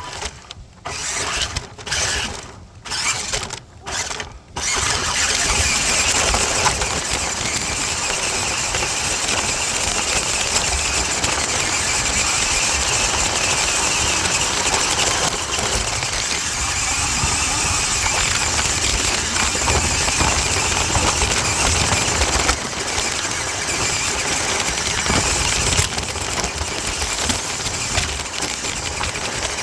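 Toy RC truck's electric motor and drivetrain running, heard from a camera riding on the truck: a few short spurts in the first four seconds, then one long continuous run that stops abruptly at the end.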